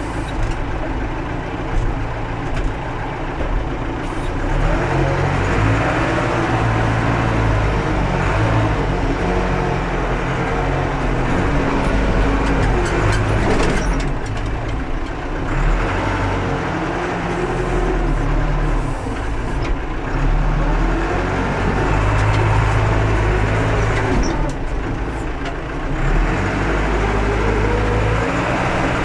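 Massey Ferguson 50B backhoe loader's diesel engine working under load while digging and loading half-frozen ground, its revs rising and falling again and again as the hydraulics work, with a few knocks and clanks.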